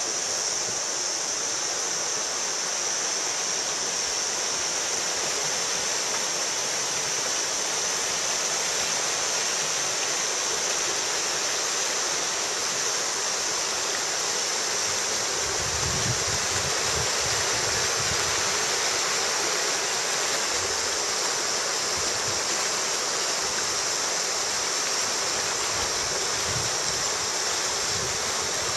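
Mountain stream rushing over rocks, a steady, unbroken wash of water. A few low bumps on the microphone come around the middle.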